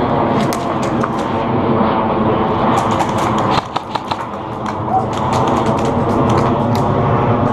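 Airsoft guns firing in scattered sharp snaps and short strings, over a steady rush of background noise.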